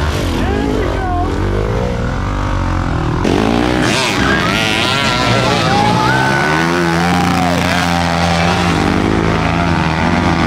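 Dirt bike engines revving up and down as they ride a wooded trail. The engine sound changes abruptly about three seconds in. Voices shout over the engines.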